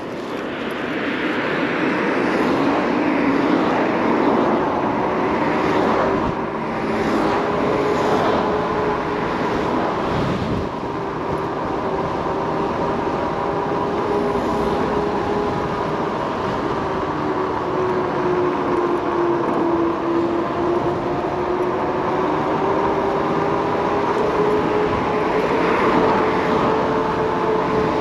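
Kaabo Wolf King GT electric scooter's dual hub motors whining steadily under way, the pitch sagging about two-thirds through and climbing again with speed. Wind rush and tyre noise run underneath.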